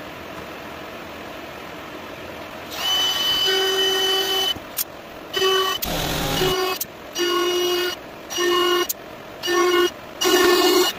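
After a few seconds of steady background hiss, a DeWalt cordless compact router runs with a steady high whine in short stretches that start and stop abruptly, about one a second, while it cuts grooves in a plywood board.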